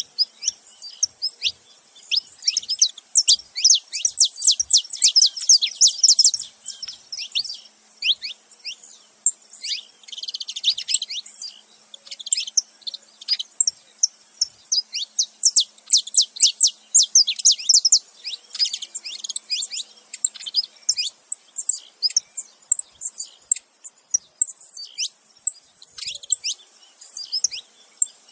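Saffron finches, a male and a female, chirping in rapid runs of short, high notes that sweep downward. The notes crowd into dense bursts several times, with sparser chirps between.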